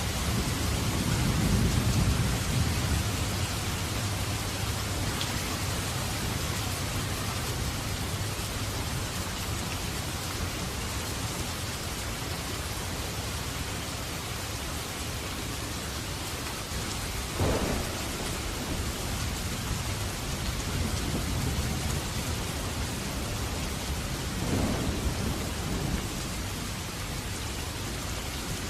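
Steady heavy rain with thunder: a low rumble of thunder in the first few seconds, and two sudden louder cracks, about 17 and 25 seconds in.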